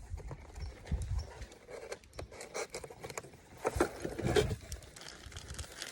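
Handling and unpacking noises from a boxed air rifle: scattered knocks, clicks and rustling, with louder clusters of knocks about a second in and again past the middle.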